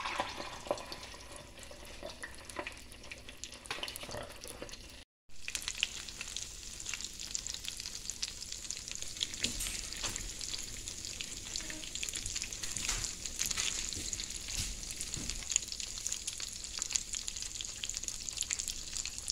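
Hands working breadcrumbs onto fish, a soft rustle and crunch of crumbs; then, after a break, breadcrumb-coated blue rockfish frying in hot oil, a steady sizzle full of small crackles.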